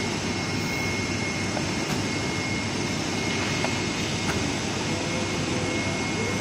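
Rubber production line machinery running steadily: a constant mechanical rush with a thin high whine and a few faint ticks.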